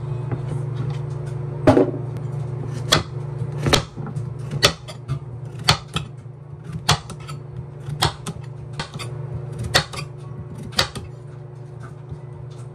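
Kitchen knife slicing a cucumber into thick rounds on a wooden cutting board: about ten sharp chops, roughly one a second, over soft background music.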